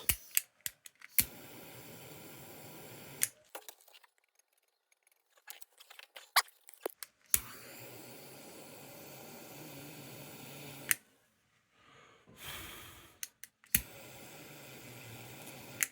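Small torch hissing steadily while a solder joint on a tin lantern is heated, in three stretches that start and stop abruptly with a click. Small clicks and taps of handling the metal come in between.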